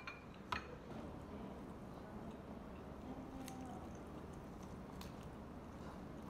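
Two sharp clicks about half a second apart as a diner handles things on the table around a tabletop shabu-shabu burner, the first with a short ringing tone. After them only a faint steady hiss and a few soft ticks of chopsticks and food being moved.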